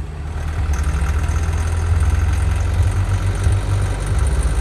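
1984 Chevrolet Chevette engine pulling hard at full throttle from low revs in gear, with a fast, clattering rattle over the engine note. The owner suspects the valves.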